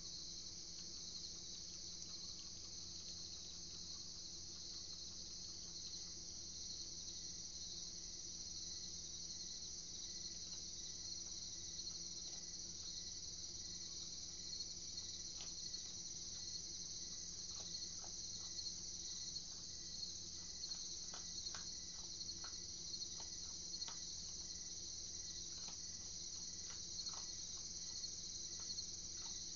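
A steady, high chorus of night insects runs throughout. From about halfway in come scattered short crunchy clicks, which fit an opossum chewing dry food off the rug.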